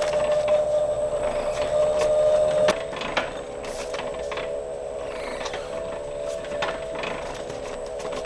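Platen printing press running, its cycle knocking about once a second over a steady hum. The hum and the overall level drop a little about a third of the way in.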